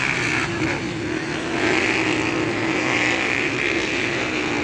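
Motocross bike engines running on the track, a steady drone that swells and eases a little.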